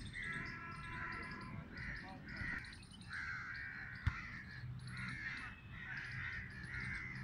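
Crows cawing over and over, a run of short harsh calls about two a second, with fainter high chirps of small birds behind them.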